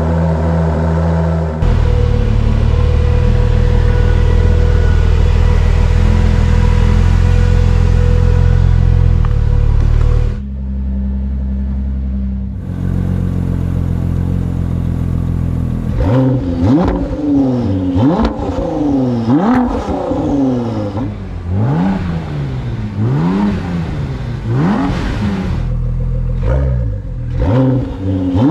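Ford GT's twin-turbo V6 running through a straight-through X-pipe rear exhaust section. It holds a steady fast idle for about ten seconds, then settles lower. From a little past halfway it is blipped again and again, each rev climbing and falling back quickly.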